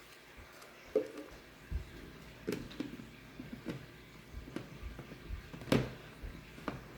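Plastic lid of a Tupperware Power Chef hand-pull chopper being fitted and closed: a series of light plastic clicks and knocks, the loudest near the end.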